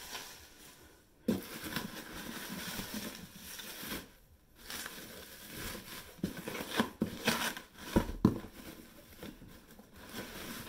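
Plastic bubble wrap crinkling and rustling as it is pulled and handled in a cardboard box, in irregular spells with a few soft knocks of things bumping in the box.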